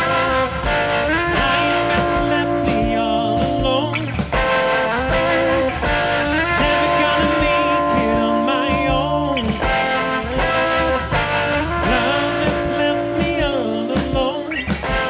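Live rock band playing: electric guitar, electric bass and drum kit, with a man singing over them.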